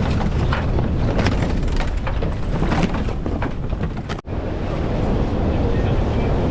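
Wind buffeting the microphone over the rush of water past a sailboat under way, with gusty streaks in the first few seconds; the sound drops out for an instant about four seconds in, then carries on steadier.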